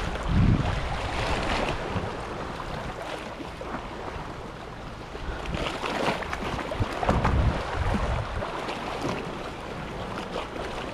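Sea waves washing, with wind gusting on the microphone twice.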